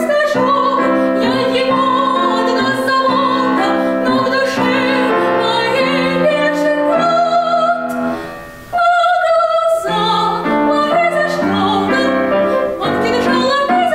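A young girl singing in a classical, operatic style with vibrato, accompanied by a grand piano. The music drops away briefly a little past halfway, then the voice comes back in on a held high note.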